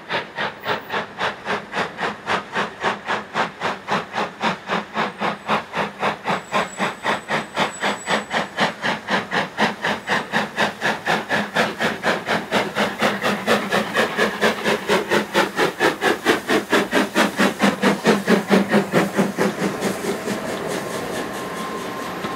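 Steam locomotive hauling a train of coaches and working hard, its exhaust beating in a fast, even chuff that grows louder as it approaches. Near the end the beats give way to the steadier rumble of the coaches passing.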